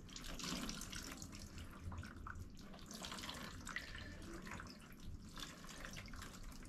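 Water poured from a bowl over dreadlocks, trickling and splashing into a plastic basin below as the hair is rinsed.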